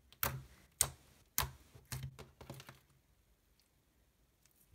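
Slime being pressed and squeezed by fingers, making sharp clicking pops about every half second, which stop about three seconds in.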